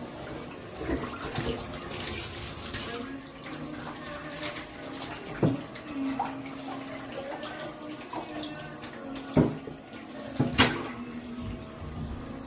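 Water running from a faucet, with a few sharp knocks and clatters, the loudest about nine and a half and ten and a half seconds in.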